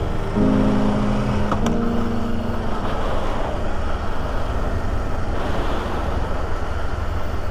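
Honda 400X parallel-twin motorcycle under way, a steady run of engine and road noise.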